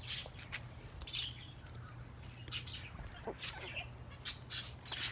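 Birds giving short, scattered chirps and calls as they feed on thrown bread, over a low steady hum.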